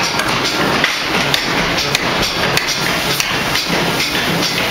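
Hot-forging machinery running: a 450-ton ring rolling machine working a red-hot steel ring and a 1-ton forging hammer. A loud, steady din of rapid knocking and clanking.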